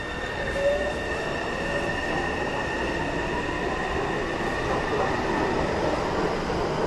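Taipei Metro high-capacity steel-wheel electric train pulling out of the station, its motors giving a whine that climbs in pitch as it gathers speed. The running noise of wheels on rail grows steadily louder.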